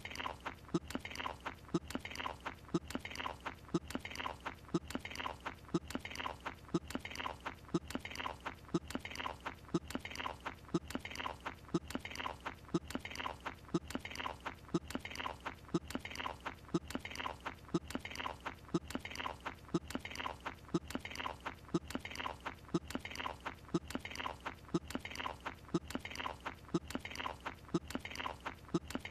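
Cartoon chewing of a croissant, exaggerated mouth noises repeating in an even loop about once a second.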